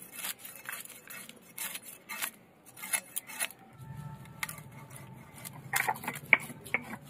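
Small hilsa being scaled and cut against the upright iron blade of a bonti: a run of quick scraping strokes as the fish is drawn along the blade. A low steady hum joins about four seconds in.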